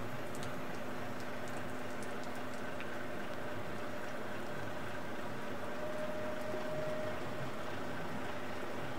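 Steady patter of rain, with the low, even hum of a heavy-haulage lorry's diesel engine running underneath.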